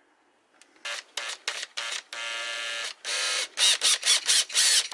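Electric drill boring new holes in a metal plate, the trigger pulsed in short bursts with one steady spell of motor whine in the middle.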